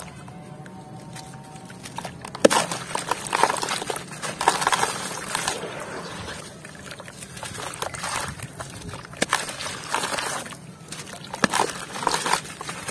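Gritty chunks being crushed and crumbled by hand under water in a plastic tub: wet crunching, grinding and sloshing in uneven bursts, with a sharp crack about two and a half seconds in.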